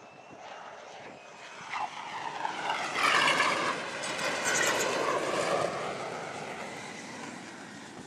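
The F-35C's single F135 turbofan builds from a distant roar as the jet lands on the carrier and catches the arresting wire. It is loudest about three to five and a half seconds in, with a sweeping, whooshing quality, then slowly dies down. There is a brief thump just under two seconds in.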